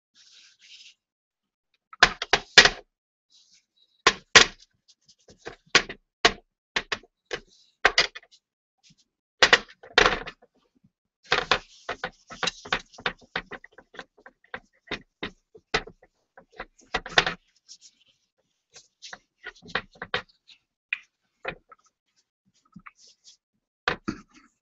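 A bowl knocking and clattering against a wooden tray as it is handled, with the rub of a cloth polishing its surface in between. The knocks are irregular, with several loud clunks.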